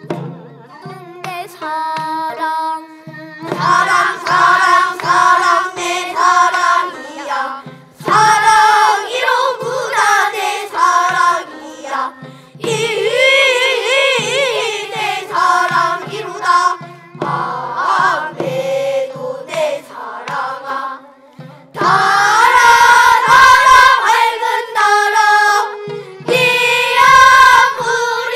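Children's voices singing a changgeuk (Korean folk opera) ensemble song together, with traditional instrumental accompaniment.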